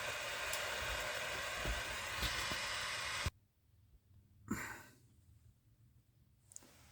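Electric heat gun blowing steadily on the breech to melt the solder, then switched off abruptly about three seconds in. A short breathy sound follows about a second later.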